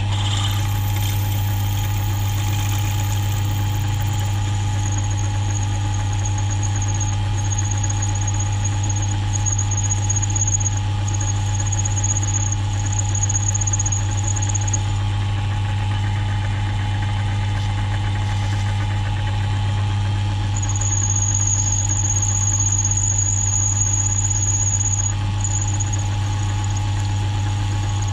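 Small milling machine running with a steady hum while a twist drill bit bores into a block of aluminium. A high-pitched squeal from the cutting comes and goes, for about ten seconds starting a few seconds in and again for a few seconds in the second half.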